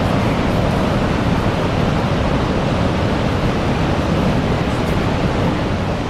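Steady rush of water pouring over the brink of the Horseshoe Falls at Niagara, a dense even noise with no breaks.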